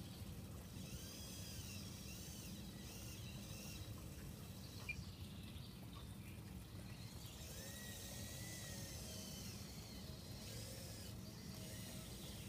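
Faint outdoor ambience: a steady low hum, with short high chirps, likely birds, coming and going.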